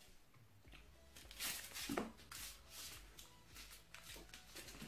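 Faint rustling and scraping of a small cardboard box being handled and its flap pried open, in several short bursts, with a light tap about two seconds in.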